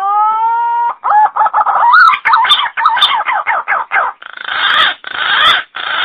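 Green pigeon (punai) lure call: a rising whistle held for about a second, then a quick run of warbling notes, ending in a few rough, hoarse bursts.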